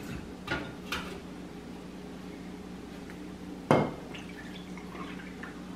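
Water poured from a glass measuring cup into a bowl of sugar, with a sharp clink of the cup against the bowl just before the pour and two lighter clinks of dishes about half a second and a second in. A low steady hum runs underneath.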